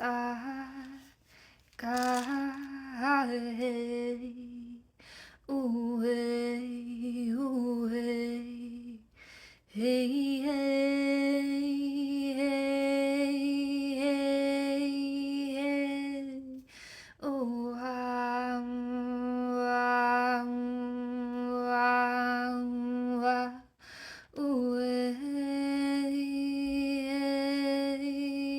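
A woman humming long, steady held notes in a sound-healing chant, with short breaths between phrases; the longest notes last six or seven seconds each, in the middle of the stretch.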